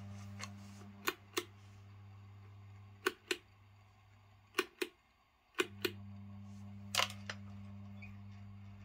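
Steady low electrical hum from a ceiling fan motor on its mains supply. Its level steps down twice, it stops a little before halfway, then it starts again a few seconds later. About five pairs of sharp clicks sound over it, like a switch being worked.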